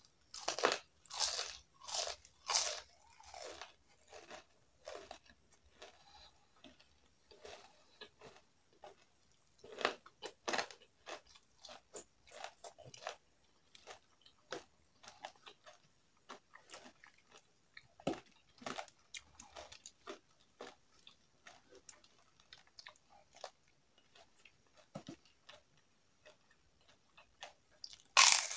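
Close-miked eating sounds: someone biting into and chewing crispy fried chicken skin, with loud crunches in the first few seconds and again near the end, and quieter chewing between.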